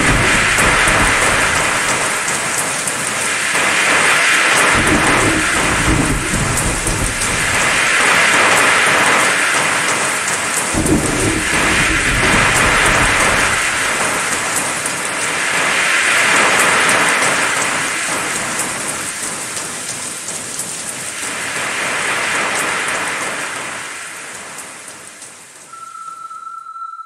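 Heavy rain with low rumbles of thunder, the rain swelling and easing every few seconds; it fades out near the end.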